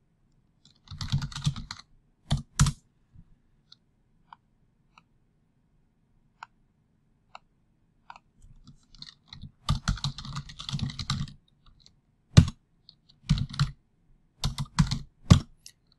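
Typing on a computer keyboard in bursts: a quick flurry of keystrokes about a second in, a longer run of typing around ten seconds in, then a few separate key presses near the end.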